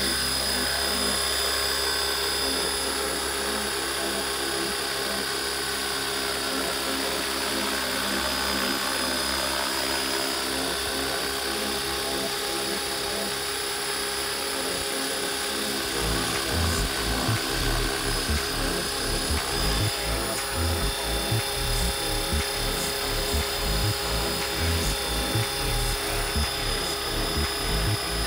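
RC scale Huey helicopter's motor and rotor running with a steady whine as it lifts off and hovers. About halfway through, a low, gusty buffeting on the microphone joins in.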